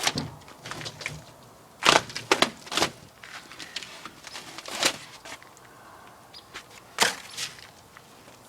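Irregular knocks, clicks and crackles of a window pane and its insulation being pulled and worked loose, with a few sharper knocks about two, five and seven seconds in.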